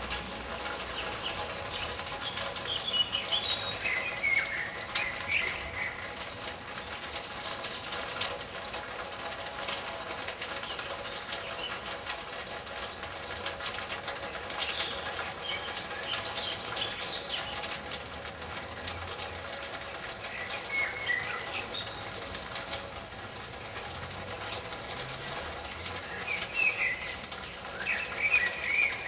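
Small birds chirping in short scattered bursts, loudest near the end, over a steady outdoor background hiss.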